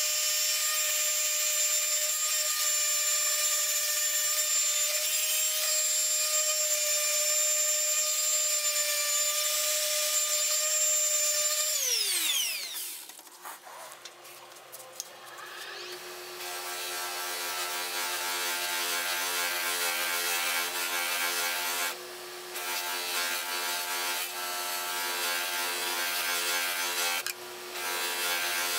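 Random orbital sander running steadily against the steel plate of an old back saw, taking off rust, then switched off and winding down with a falling whine. After a short lull a bench grinder fitted with a buffing wheel runs with a lower steady hum as the saw plate is polished on it.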